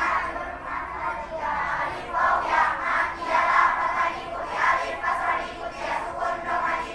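A group of schoolchildren reciting in unison in a rhythmic, sing-song chant: the tajwid rules of mad (vowel lengthening) being recited from memory.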